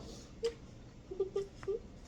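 A woman's stifled giggles: a few short, high-pitched squeaks through closed lips, about half a second in and again several times near the middle.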